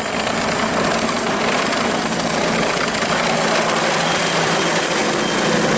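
Helicopter sound effect: a steady rushing rotor noise with a thin high whine on top. It cuts off abruptly at the very end.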